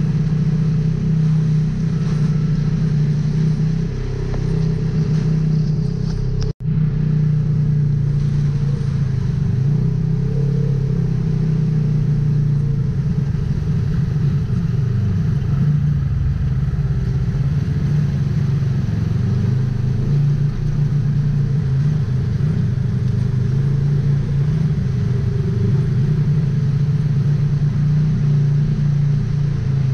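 Polaris RZR XP 1000 side-by-side's engine running at a steady pace, its low note holding nearly constant. The sound cuts out for an instant about six and a half seconds in.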